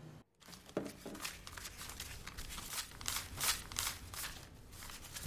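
Paper banknotes being handled and counted: irregular crisp rustling and crinkling of bills, starting after a brief gap about a quarter second in.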